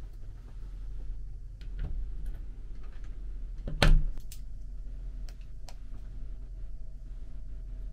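A headphone plug pushed into a wall-panel headphone jack with one sharp click about four seconds in, followed by a few light clicks of TV remote buttons, over a steady low hum.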